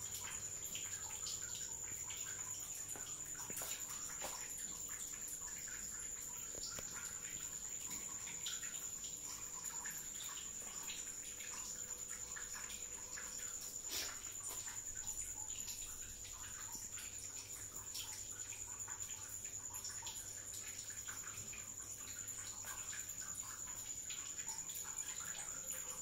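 Steady low background noise with a thin high whine and many faint scattered ticks, one sharper click about halfway through.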